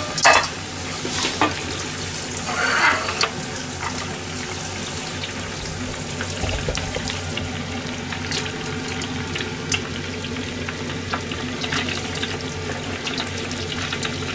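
Tempura deep-frying in a pan of hot oil: a steady sizzle with dense small crackles. A few brief knocks and a short rush of noise come in the first three seconds.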